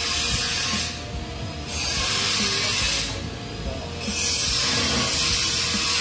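Snap-off utility knife slicing through vinyl roll flooring along a straightedge: a scratchy hiss in three long strokes with short pauses between them.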